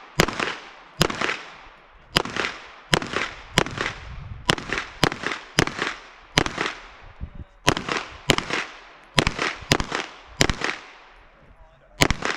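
A string of rapid gunshots from a practical-shooting stage run, about fourteen shots, mostly fired in quick pairs about half a second apart with short pauses between. Each shot is followed by a brief echoing tail.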